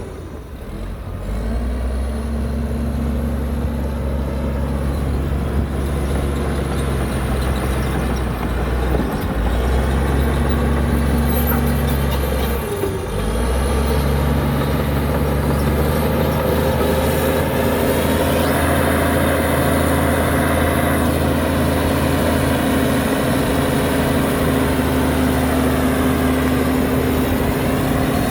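Heavy diesel engine of earthmoving machinery, a dump truck or bulldozer, running under load. The engine note dips briefly a few times, then steps up about halfway through and holds higher. A hiss lasts a couple of seconds a little past the middle.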